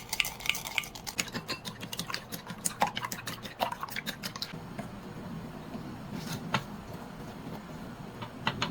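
Kitchen utensils clinking and tapping against dishes, a quick run of light clicks that thins out after about four seconds.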